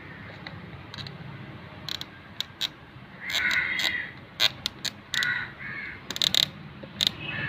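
A crow cawing: one long caw a little after three seconds in, then two shorter caws about five seconds in. Scattered sharp clicks and taps come from a screwdriver prying the plastic lock and cup off a fuel pump assembly, with a quick cluster of clicks about six seconds in.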